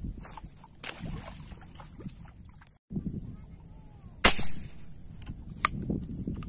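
A homemade rubber-powered speargun fires once about four seconds in with a sharp snap, followed by a smaller click about a second and a half later.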